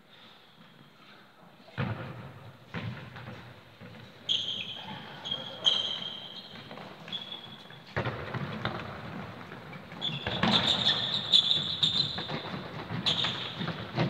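A football being kicked and thudding on the floor during an indoor game, each hit echoing round a large sports hall, mixed with short high squeaks of trainers on the court. The play gets busier and louder from about eight seconds in.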